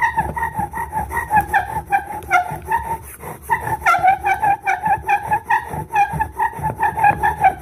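Bow drill working: a tamarack spindle spun hard against its hearth board, squealing on a steady pitch. The sound swells and fades with each back-and-forth stroke of the bow, a few times a second, as the hearth starts to smoke on the way to an ember.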